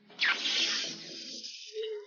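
A sudden loud hiss that starts about a quarter second in and fades away over a second or so, followed near the end by a brief low hum-like tone.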